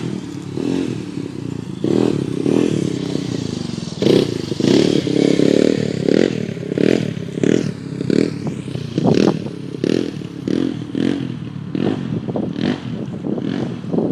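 ATV engine running, surging unevenly in loudness, with short sharp noises throughout.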